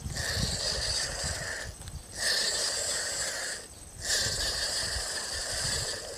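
Spinning reel being cranked to retrieve line, a whirring that comes in three spells of about one and a half seconds each with short pauses between.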